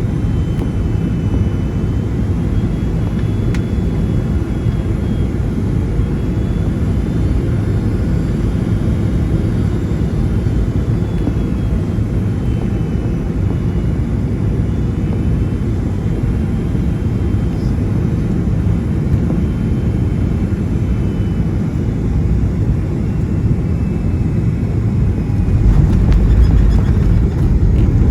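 Cabin noise inside a Boeing 757-200 during the landing approach: a steady low rumble of engines and airflow with a faint high engine whine slowly falling in pitch. Near the end the rumble grows louder.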